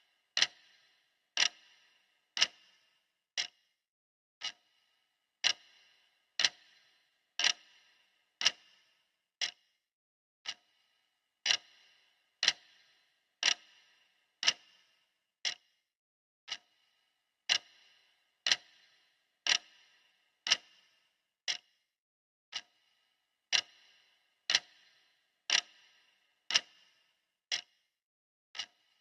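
Clock ticking steadily, about one sharp tick a second, each with a brief metallic ring, with an occasional beat dropping out.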